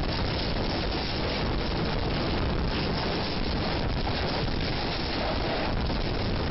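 Tornado-force wind rushing through a school hallway, heard through a security camera's microphone as a steady, unbroken rush of wind noise.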